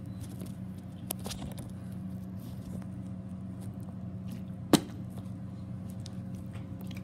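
Handling noise close to the floor: a sharp knock about five seconds in and two lighter clicks about a second in, over a steady low hum.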